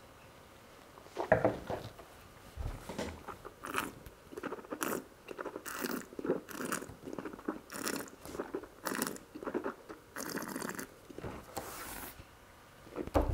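A wine taster slurping a mouthful of wine: from about a second in, a long run of irregular slurps and hissing draws of air through the wine, the loudest at the start. The slurping pulls air into the mouth to aerate the wine and bring out its flavours.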